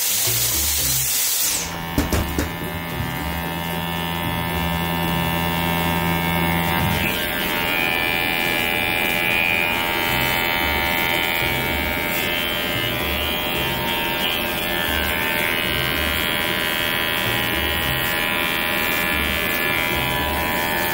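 Electric pet hair clippers buzzing steadily as they cut a small dog's fur, a constant hum with a stack of steady tones. A hiss over the first two seconds cuts off abruptly, and light background music runs underneath.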